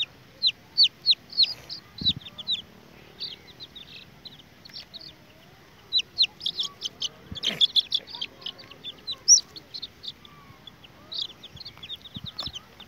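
Young chicks peeping in quick runs of short, high, falling peeps, several chicks at once, while being caught by hand. Two brief knocks of handling come about two seconds and seven and a half seconds in.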